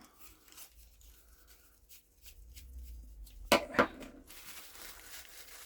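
Small objects and packaging being handled on a desk: faint rustling and light taps, with two sharp clicks close together about three and a half seconds in, followed by a soft rustle.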